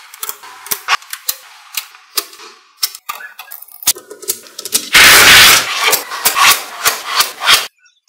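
Small neodymium magnetic balls clicking and snapping together as rows of them are pressed into a flat sheet: a quick, uneven run of sharp clicks. About five seconds in comes a loud, dense crackle of many balls snapping into place at once.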